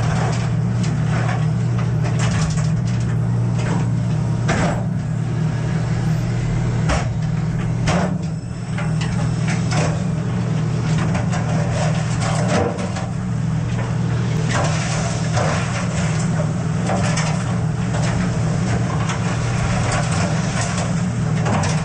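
Steady low drone of the crab boat's engine and deck machinery, with repeated clattering knocks as crabs and the crab pot hit the metal sorting table and chutes.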